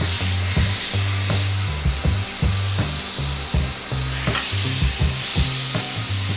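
Pork belly sizzling on a hot grill pan with onion slices, a steady frying hiss, under background music with a regular bass beat.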